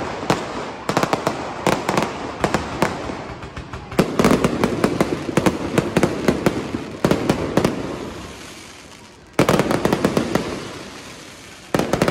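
Fireworks show: aerial shells bursting in rapid succession with sharp bangs and crackling. Fresh heavy volleys break out about four seconds in, around seven, about nine and a half, and again near the end, each trailing off into scattered crackle.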